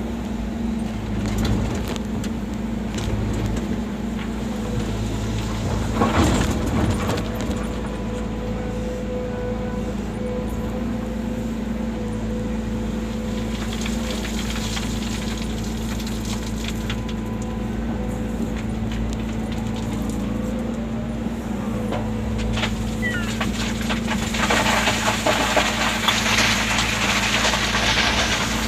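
Volvo excavator's diesel engine running steadily as the machine works. There is a short loud burst of noise about six seconds in, and a louder noisy stretch near the end.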